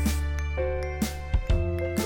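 Upbeat, light background music with a steady beat and bell-like tinkling notes.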